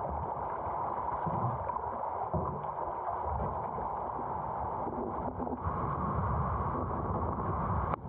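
Whitewater river rushing around a kayak: a steady wash of moving water with uneven low rumbling.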